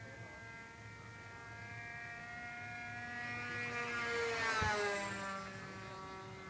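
Radio-controlled model Cessna 210's motor droning in flight as the plane passes by: louder toward the middle, then its pitch drops about four and a half seconds in as it goes past and fades away.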